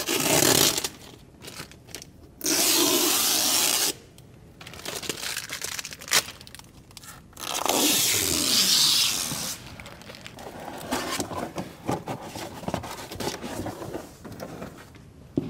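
Protective plastic film being peeled off a new car's door sill in three long tearing pulls, the longest lasting over a second. After that, a wrapping sheet is crumpled and rustled in quieter, irregular crackles.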